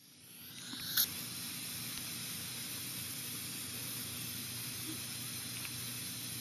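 Steady hiss with a low hum underneath, fading in over the first second and a half, with one sharp click about a second in.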